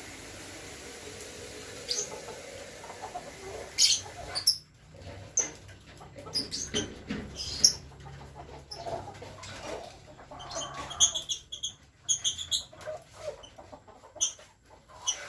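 Kampung chickens moving about, with short high calls and many scattered clicks and taps, busiest about eleven to thirteen seconds in.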